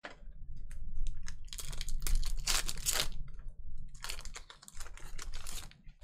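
Foil trading-card pack wrappers being torn open and crinkled in the hands, in two long crackling spells with small clicks between them.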